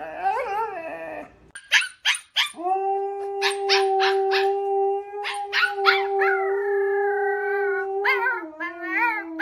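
Dog howling: wavering whine-like cries, then one long, steady held howl, then more wavering cries near the end. A few sharp clicks come just before the long howl and during it.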